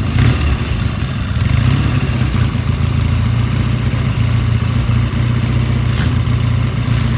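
1977 Triumph T140V 750cc parallel-twin motorcycle engine running steadily at low revs as the bike rolls slowly up.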